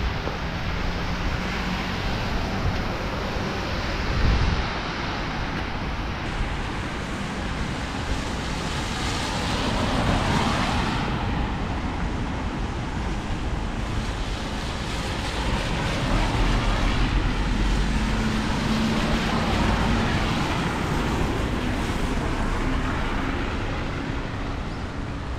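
Street traffic on a rain-soaked road: tyres hissing on the wet surface as vehicles pass, swelling about ten seconds in and again later, with a faint engine hum. A brief low knock comes about four seconds in.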